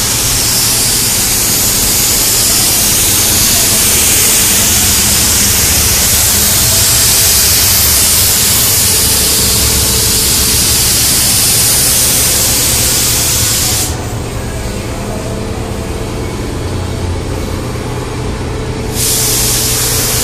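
Air spray paint gun hissing steadily as it lays paint on a truck body. About 14 seconds in the hiss stops for about five seconds, then starts again; a steady low hum runs underneath.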